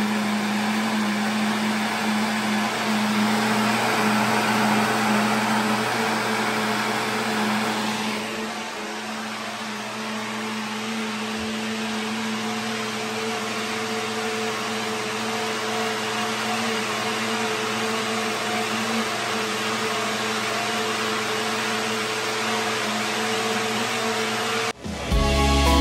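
NutriBullet countertop blender running steadily, blending a green smoothie, with a strong motor hum under the whir. About eight seconds in it becomes a little quieter, and it cuts off suddenly near the end.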